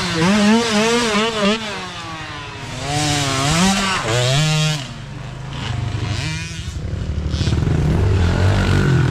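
Mini dirt bike engines revving, the pitch rising and falling repeatedly for the first few seconds. About five seconds in it settles into a lower, steadier engine rumble.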